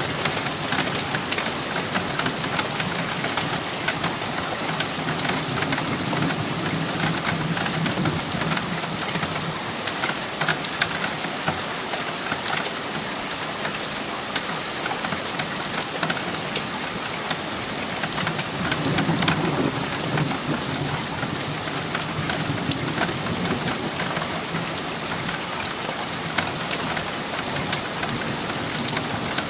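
Thunderstorm: steady heavy rain pattering throughout. Thunder rumbles twice over it, once about a fifth of the way in and again, louder, a little past the middle.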